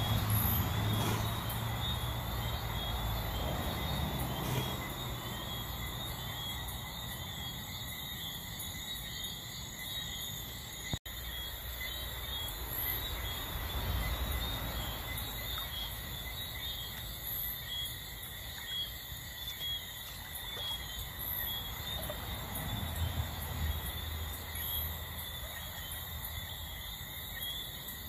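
Night insects chirping steadily in a continuous chorus of high, pulsing trills. A low rumble sits under it during the first few seconds and again near the end. The sound cuts out briefly about 11 seconds in.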